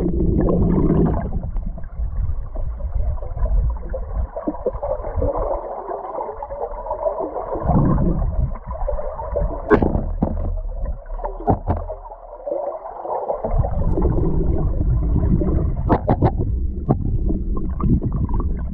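Muffled rushing and gurgling of river current, heard from a camera underwater. A few sharp knocks as the camera housing bumps against the stones of the riverbed.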